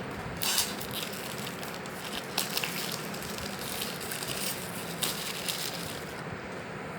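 Crinkling and rustling of packaging being handled, with a few sharper crackles.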